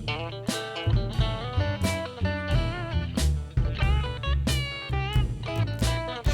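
Background music: plucked guitar melody over a bass line with a steady drum beat.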